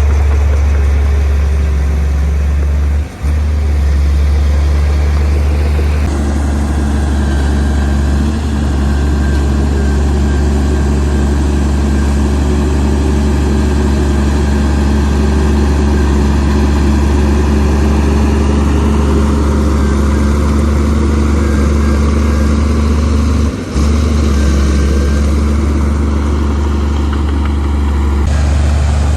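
Heavy diesel engine of earthmoving machinery running steadily under a low, constant drone, with two brief drops in level, one about 3 seconds in and one near 24 seconds.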